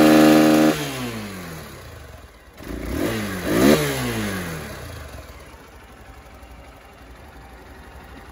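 Hero Hunk 200R's air-cooled single-cylinder engine held briefly at full revs against the rev limiter, then revs falling away. It is blipped once more about three seconds in, rising to a short peak, then drops back and idles steadily.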